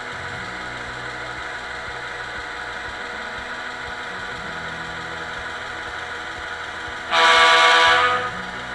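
Model diesel locomotive's sound decoder (Soundtraxx Tsunami 2) playing a diesel prime mover running at creep speed through the model's speakers, with a horn blast of about a second near the end.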